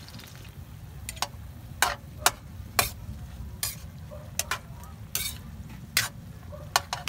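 Spatula scraping and knocking against a wok while cubes of pork are stirred, about a dozen sharp strokes at uneven intervals starting about a second in, with the pork frying faintly underneath.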